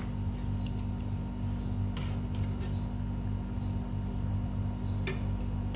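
A metal spoon stirring rice and broth in a pot, with a few light clicks against the pot, over a steady low hum. A short high chirp repeats about once a second.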